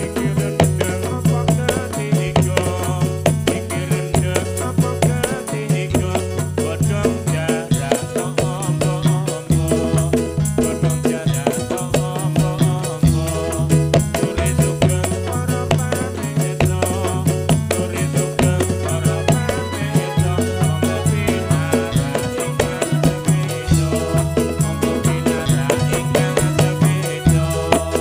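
Live music for a Ndolalak dance: a keyboard and drums playing a steady, even beat, with a repeating bass line.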